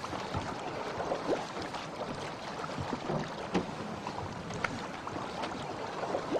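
Water lapping and slapping against a boat's hull, with a steady wash of wind and water noise and small scattered splashes.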